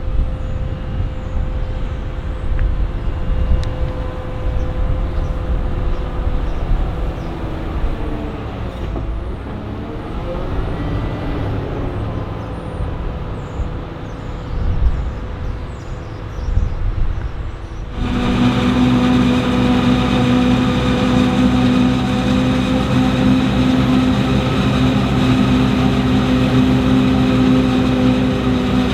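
Diesel engines of heavy farm machinery working a maize silage harvest. About ten seconds in, the pitch of a passing machine rises and falls. Partway through the sound cuts to a louder, steady, even engine hum.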